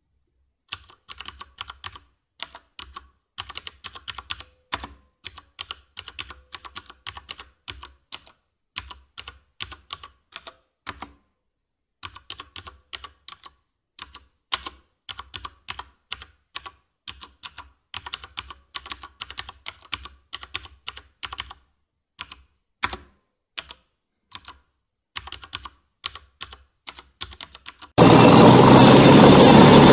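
Quick irregular runs of small plastic clicks, Lego bricks being snapped onto a baseplate, with a couple of short pauses. Near the end a loud steady low noise starts suddenly.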